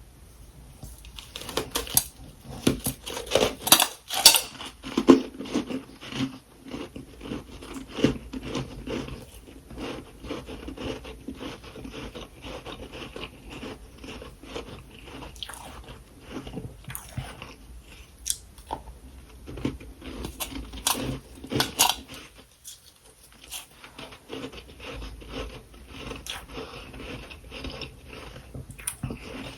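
A person biting and chewing freezer frost, a dense run of crunching that is loudest in the first few seconds, with a brief pause about three-quarters of the way through.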